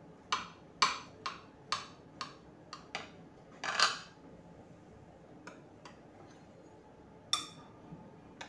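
Knife cutting through a soft cake, its metal blade clicking against the ceramic plate about twice a second, then one longer scrape. A few more clinks of metal on the plate follow, the sharpest one near the end.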